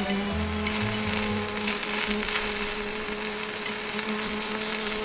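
A bee buzzing right beside the microphone: a steady, unbroken drone that holds one pitch.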